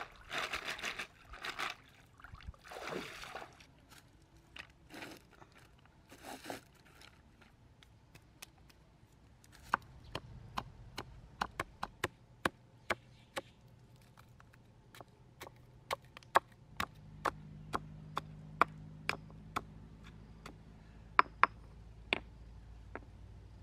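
A woven basket swished and dipped in shallow stream water, splashing in short bursts. Then a stone pestle pounds fresh red chilies in a stone mortar, with sharp knocks about two a second.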